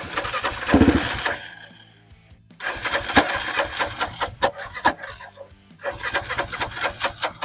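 Yamaha Grizzly ATV engine being cranked over in three tries, catching for a moment in the first and then failing to keep running. It will not start, which the owner puts down to it not getting any fuel.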